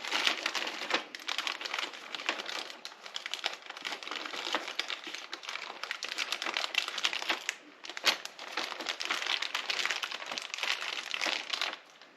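Small plastic hardware bag crinkling as it is handled and opened to get at the bolts, with dense, irregular crackles that die away near the end.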